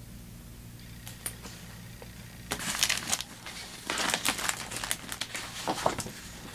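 Shopping bag crinkling and rustling as it is handled. It comes in irregular bursts from about two and a half seconds in until shortly before the end.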